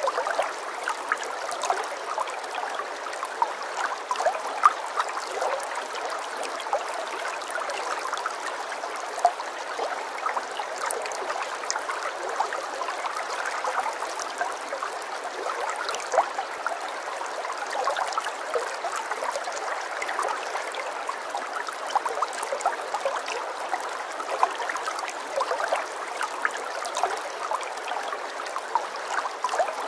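Running water: a small stream trickling and gurgling steadily, with many little splashes and no deep rumble.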